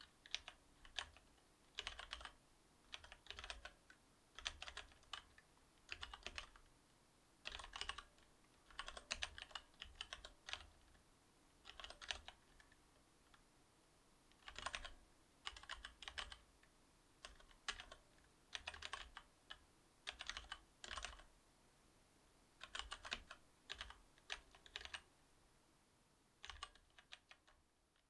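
Typing on a Cherry MX Board 8.0 mechanical keyboard with Cherry MX Silver linear switches: keystrokes come in quick bursts of clicks with short pauses between them.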